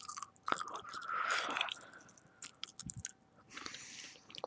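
Close-miked gum chewing: irregular wet smacks and clicks from the lips and teeth.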